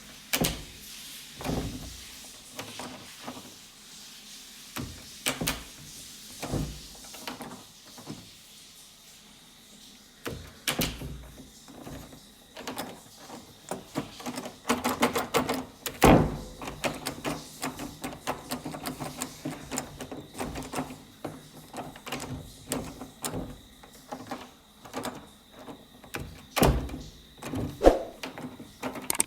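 Door sounds one after another: latch clicks, knocks and thuds of doors opening and shutting. A quick rattling run comes in the middle, and the loudest thuds fall about halfway through and again near the end.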